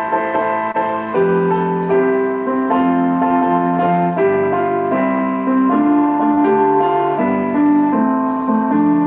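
Piano music: a song accompaniment of held chords under a melody line.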